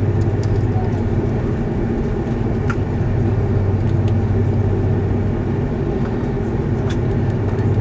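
Airbus A330-300 cabin drone on the ground: a steady low hum from the idling engines and air systems while the airliner waits to take off. Two faint clicks sound over it.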